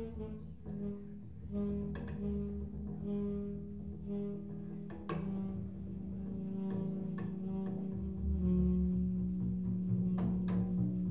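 Tenor saxophone and double bass in a free-improvised duet: long held low notes with scattered sharp clicks and taps, growing louder about eight seconds in.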